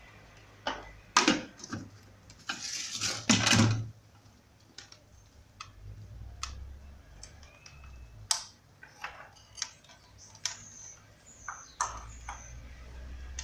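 Kitchenware being handled while a blender jar is loaded: scattered clicks and knocks, busiest and loudest in the first four seconds, then sparse light clicks.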